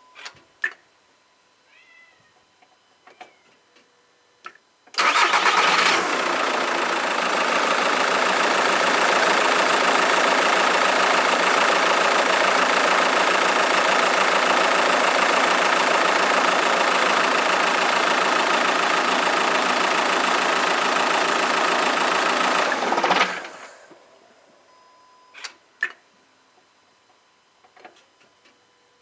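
Audi A3 2.0 TDI four-cylinder turbodiesel engine started about five seconds in, running steadily for about eighteen seconds, then switched off and dying away within about a second. The shut-off is where the owner hears a noise he doubts is normal, with the dual-mass flywheel as a suspect.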